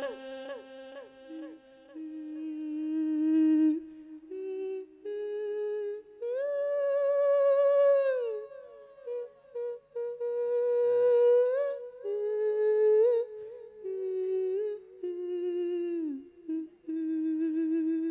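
A Buddhist monk singing a Thai lae sermon into a microphone: one male voice holding long drawn-out notes that slide and waver from pitch to pitch, with short breaths between phrases.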